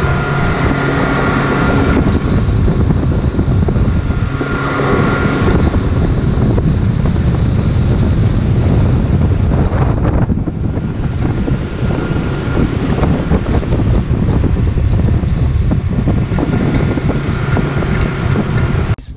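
Boat engine running steadily under way, with strong wind rushing over the microphone.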